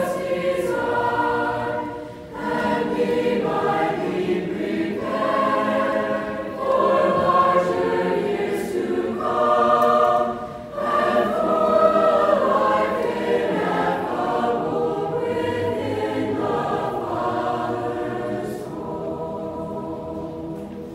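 Mixed-voice youth choir singing in parts, with brief breaks between phrases about two seconds in and again near eleven seconds; the singing grows softer near the end.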